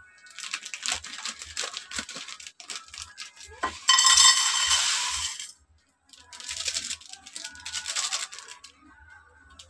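A plastic instant-noodle packet crinkling as it is snipped open with scissors. About four seconds in comes the loudest part: a dense, ringing rattle lasting about a second and a half as broken dry noodles are poured into a metal saucepan. Near the end, the crinkle of a foil seasoning sachet being handled.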